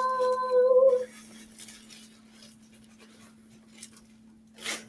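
Faint rustling and light clicks as a new parasol is handled, with one short, louder rustling swish near the end.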